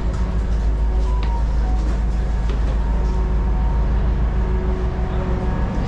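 Steady low drone of a ferry's engines heard inside the passenger cabin, with a few faint clicks and knocks over it.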